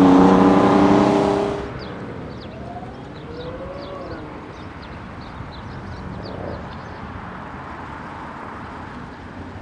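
A car engine pulling away loud and close, its pitch dipping and climbing, stops abruptly under two seconds in. Then a car engine revs faintly in the distance a few times in short rising and falling glides. Birds chirp over steady outdoor background noise.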